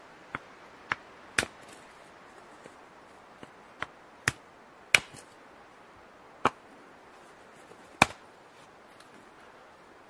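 Hatchet splitting kindling on a wooden chopping round: about eight sharp chops at an uneven pace, some in quick succession.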